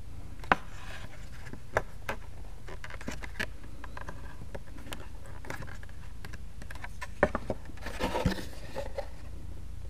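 Small handling sounds from a wooden block held pressed into a heat-softened plastic battery box lid: scattered faint clicks and creaks over a low steady hum. About eight seconds in, a longer rustling stretch as the lid and hands move.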